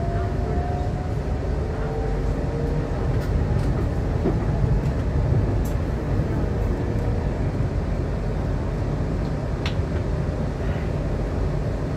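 Steady rumble of a moving Metrovalencia Line 1 train heard from inside the carriage, with a faint rising whine in the first few seconds and a few light clicks.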